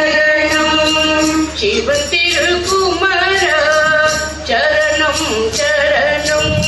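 A group of women singing a devotional Hindu bhajan together, with long held notes and gliding ornaments.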